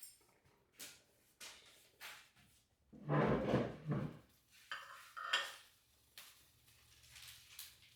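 Dishes and cutlery clinking and clattering in a series of separate knocks, with a longer, louder clatter about three seconds in.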